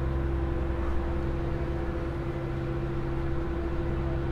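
Engines of the open car ferry Osia Methodia running steadily underway: a constant low drone with a steady hum over it.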